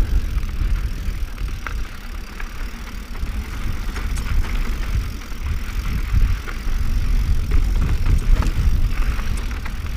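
Mountain bike being ridden over rocky trail: a steady low rumble of wind and rolling noise on the bike-mounted microphone, broken by scattered sharp clicks and knocks from the bike and its tyres on rock.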